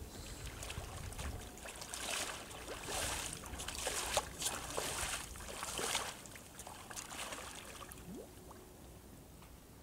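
A person in waders walking through shallow water, with irregular splashing and sloshing at each stride that dies down near the end.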